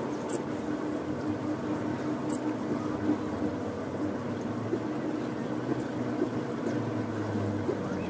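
Steady mechanical hum with a held low tone. A deeper drone swells in about halfway through, and there are a couple of brief high chirps.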